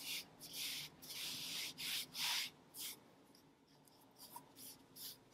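A hand rubbing kinesiology tape down onto the skin of a forearm, soft brushing strokes about two a second, to warm and activate the adhesive. The strokes stop about three seconds in, leaving only a few faint touches near the end.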